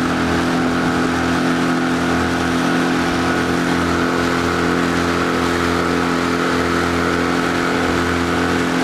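Small speedboat's engine running at a steady speed, heard from on board.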